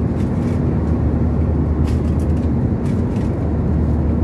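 Steady drone of an airliner cabin in flight: engine and airflow noise with a constant low hum. A few light clicks sound over it.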